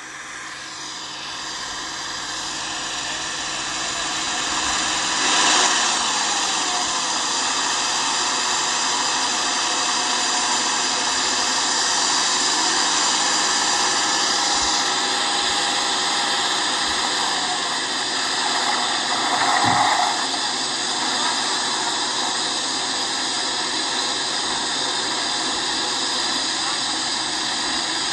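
Tractor engine running steadily while pulling a sugarcane inter-row cultivator, as a continuous drone that fades in over the first few seconds. It swells briefly about five and a half seconds in and again about twenty seconds in.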